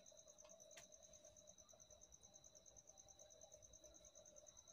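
Near silence with faint, steady cricket chirping in an even, rapid pulse, and two faint clicks about half a second and just under a second in.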